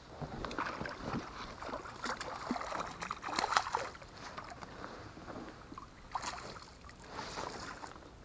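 A hooked pike thrashing and splashing at the water's surface beside an inflatable boat, in irregular splashes that are loudest about three and a half seconds in. More splashing follows near the end as the fish is scooped into a landing net.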